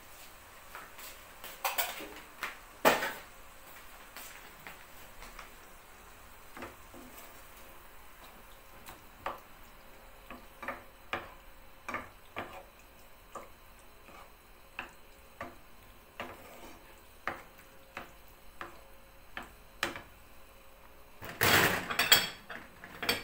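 Wooden spoon knocking and scraping against a nonstick frying pan while shrimp in tomato sauce is stirred. There is a cluster of louder clatter about two seconds in, single taps roughly every half second through the middle, and a dense burst of clatter near the end.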